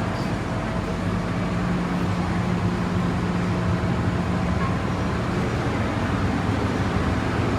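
MTR M-Train electric multiple unit pulling into a station platform: steady train running noise, with a low hum that stops about five seconds in.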